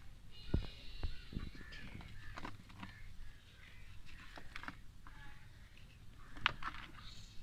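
Dry red dirt balls being crushed and crumbled by hand in a plastic tub: gritty crumbling with a few sharper cracks as clods break, the loudest about six and a half seconds in. A bird calls in the background near the start, and again briefly later.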